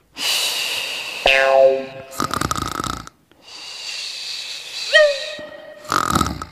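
Cartoon snoring sound effects: a run of snores alternating a hissing in-breath with a rasping out-breath, with whistle-like tones about a second in and near five seconds.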